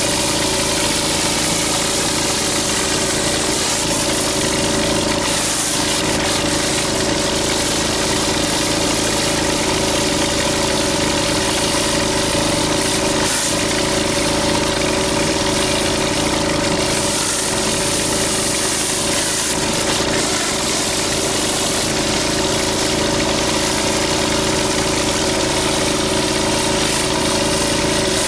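Gas-engine pressure washer running steadily at constant speed, with the hiss of high-pressure water from a rotary surface cleaner working across concrete.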